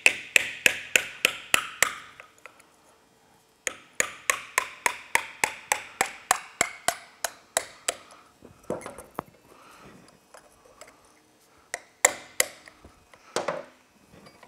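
A hammer tapping a steel punch to drive the piston out of a Polaris Sportsman 850 front brake caliper, metal on metal with a short ring after each blow. The taps come in two quick runs of about five a second, with a pause between, and then a few single, harder blows near the end.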